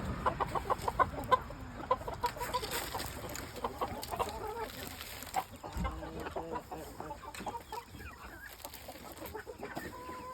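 A flock of chickens clucking, many short calls in quick succession from several birds at once.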